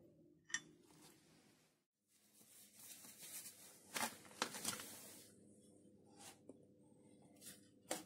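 Faint clicks and scraping from hand work on a lathe's digital-readout linear scale: a hex key clicks on the bracket's mounting screw. Then a gloved hand scrapes and clicks at the scale's red plastic shipping clip, with several sharp clicks in a scratchy stretch and a few single clicks after.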